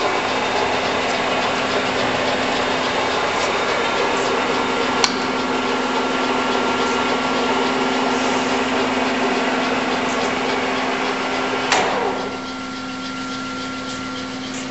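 Clausing Colchester 21-inch geared-head lathe running under power with a steady hum. There is a sharp click about five seconds in, and a clunk about twelve seconds in, after which it runs a little quieter.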